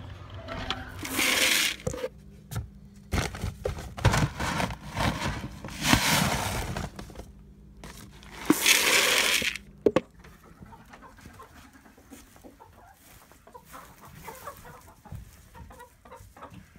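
Chickens clucking, broken by three loud rushing bursts about a second long and a few sharp knocks in the first ten seconds.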